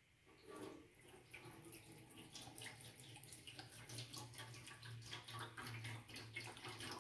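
Cooking oil poured from a plastic jug into an empty stainless electric deep fryer, a faint splashing stream hitting the wire basket and metal pot, starting about half a second in.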